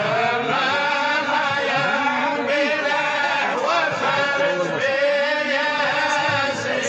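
Men's voices chanting a Sufi dhikr in long, held melodic lines, without a break.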